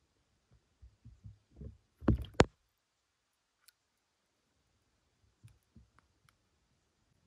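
Handling noise close to the microphone as a float fishing rod is lifted: a few soft low knocks, then two louder thuds about two seconds in, the second with a sharp click, followed by a few faint ticks.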